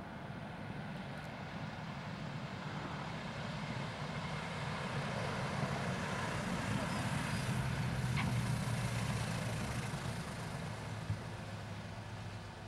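Douglas DC-3's twin radial piston engines at takeoff power during its takeoff roll: a deep drone that grows louder as the plane passes, peaks about eight seconds in, then fades as it climbs away. A short click sounds near the end.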